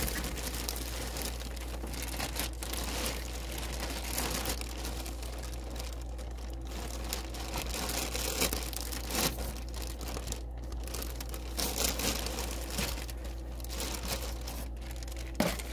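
Plastic packaging bag crinkling and rustling as it is handled and opened, with irregular crackles throughout.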